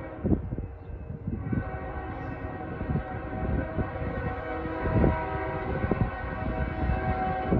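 Air horns of two approaching CSX diesel freight locomotives blowing for grade crossings: long, held chords overlapping one another. Irregular low rumbling and thumps run underneath.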